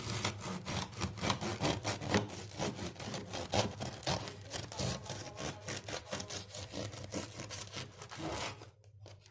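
Knife sawing back and forth through the crisp crust and soft crumb of a homemade loaf on a wooden cutting board: a fast run of scraping strokes, several a second, that stops near the end.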